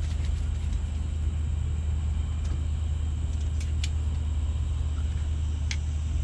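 A steady low rumble with a faint high hiss and a few sharp clicks, two close together past the middle and one near the end.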